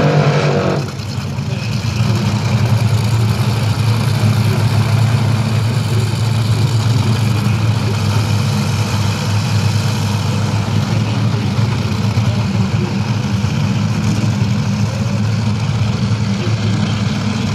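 Top Fuel dragsters' supercharged nitromethane-burning V8s. The first second is very loud, as at the end of a burnout, and it drops off about a second in. After that the engines idle loudly and steadily with a deep, even note while the cars sit in the smoke.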